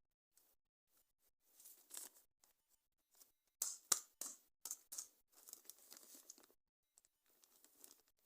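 Toy packaging being opened by hand: bursts of rustling, crinkling and tearing, with one sharp click about four seconds in.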